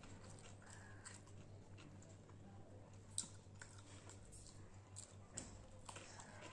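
Quiet eating by hand: fingers mixing rice on a steel plate and chewing, heard as scattered small clicks and smacks, the sharpest about three seconds in, over a steady low hum.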